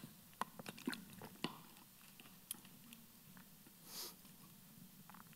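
Faint sounds of someone drinking from a water bottle: a few small clicks and gulps in the first second and a half, then a short hiss about four seconds in and a last click near the end.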